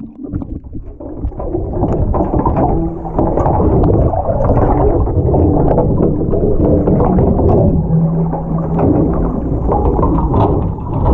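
Muffled underwater noise picked up by a submerged camera: dense churning water and bubbles with a low, steady hum beneath, rising to full strength about two seconds in after a brief dip as the camera goes under.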